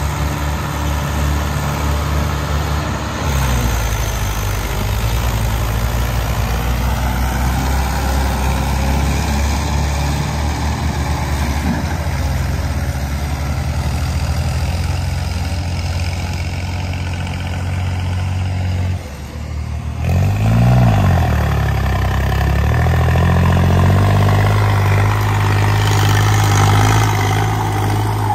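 Mahindra 575 and New Holland 5620 diesel tractor engines running steadily under load as they pull loaded trolleys. About 19 seconds in the sound drops out briefly, and then the engine pitch rises and falls once.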